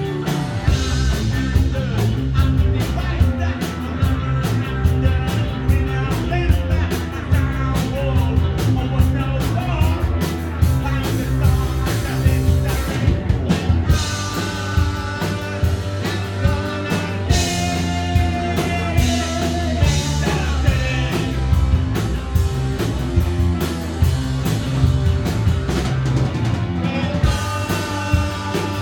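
Live punk rock band playing: distorted electric guitars, bass and drums, with a voice or lead line coming in about halfway through and again near the end.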